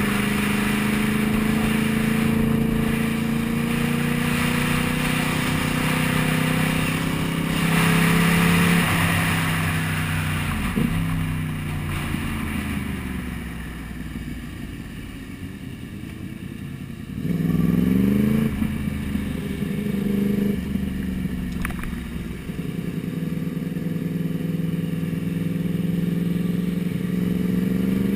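Sport motorcycle engine heard from the rider's helmet, running at a steady pitch, then dropping in pitch through several gear changes about nine seconds in, with a quick rev climb about seventeen seconds in before settling back to steady running. Wind rush over the microphone runs underneath.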